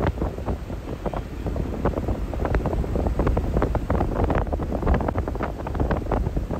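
Wind buffeting the microphone in uneven gusts, a dense rumbling crackle.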